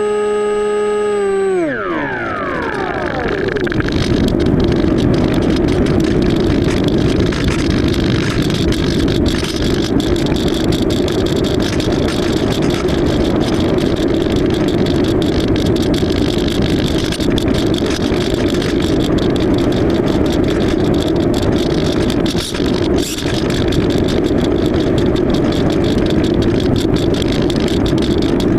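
Electric motor and propeller of an AXN floater jet RC plane in flight: a steady whine that drops sharply in pitch about two seconds in, then a loud, steady whirring rush.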